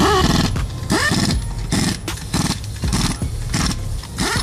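Pneumatic impact wrench on a wheel's lug nuts, hammering in a rapid series of short bursts, about seven.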